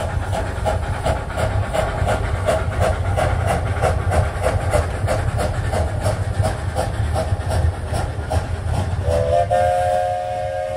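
18-inch gauge live-steam locomotive Billy Jones Wildcat Railroad No. 2 working past with quick, even exhaust chuffs. Near the end the chuffing fades and a steam whistle starts, sounding a steady chord.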